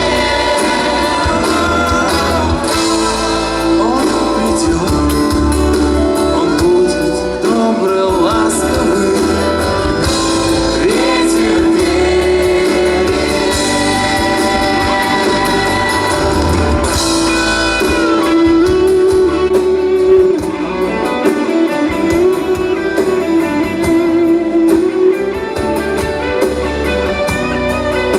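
Live band music with singing: held, gently bending vocal or guitar lines over a guitar-led accompaniment and a steady bass.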